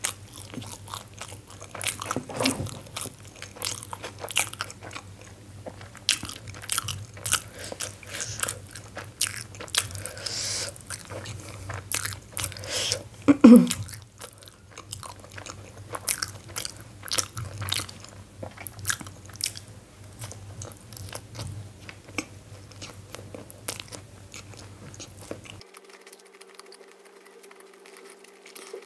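Close-miked chewing and biting of soft steamed momos (dumplings), with wet, sticky mouth clicks and smacks in an irregular stream. One louder mouth sound stands out about halfway through.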